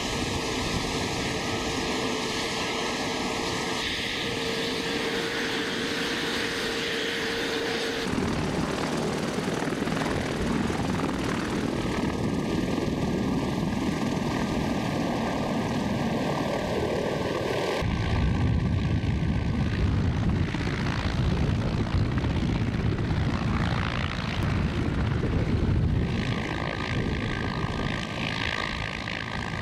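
Mi-28 attack helicopter's main rotor and twin turboshaft engines running, heard at close range on the ground and then in flight. A faint steady whine sits under the rotor noise for the first several seconds, and the sound changes abruptly twice as the shots cut.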